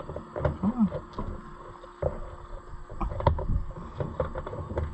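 Hand-handling noise of a hydraulic hose being worked into place on a tractor's hydraulic valve: irregular metal knocks, clinks and rubbing, the loudest knocks about three seconds in.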